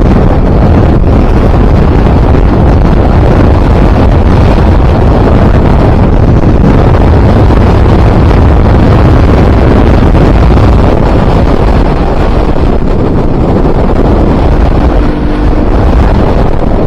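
Loud wind buffeting on the microphone over the KTM RC 200's single-cylinder engine while riding, easing slightly near the end.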